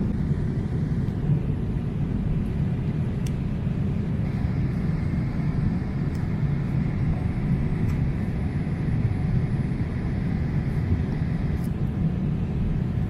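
Steady cabin roar of a Boeing 787-8 airliner in flight, a deep even rush of engine and airflow noise, with a few faint ticks.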